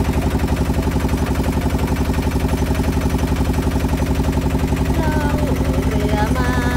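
Small river ferry boat's engine running steadily underway, with a fast, even throb.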